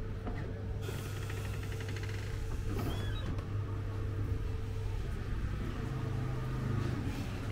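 Street ambience dominated by a steady low engine hum, with a brief stretch of fine rapid ticking about a second in and a short chirp near three seconds.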